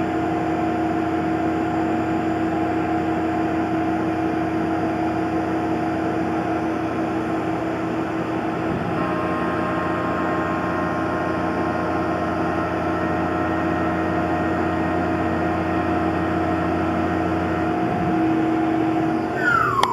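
Tormach PCNC 1100 CNC mill machining MIC6 cast aluminium plate: a steady spindle whine over running machine and cutting noise. Near the end there is a short falling whine.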